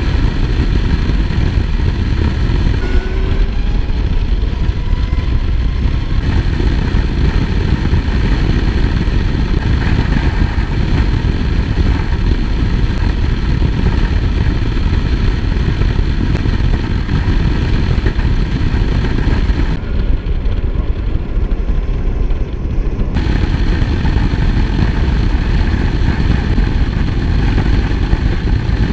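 Zero ZR/F electric motorcycle cruising at about 75–80 mph: heavy wind rush and buffeting with tyre and road noise, over a faint steady whine from the electric motor and drive.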